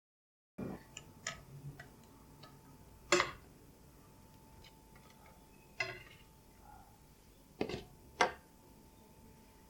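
A handful of sharp clicks and knocks, irregularly spaced, over a faint steady high hum that comes in about half a second in.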